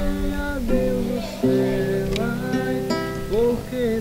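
A man singing a slow melody with long held notes, accompanying himself on a strummed acoustic guitar.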